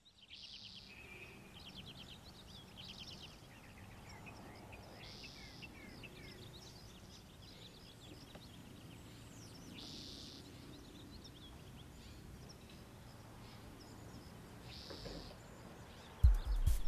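Faint outdoor ambience of birds chirping over a low steady background hum. Music comes in loudly just before the end.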